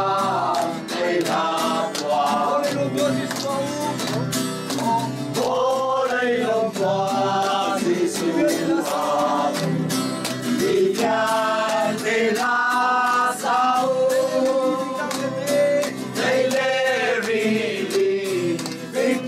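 A group of voices singing a Christmas carol together to a strummed acoustic guitar, with hand clapping along to the beat.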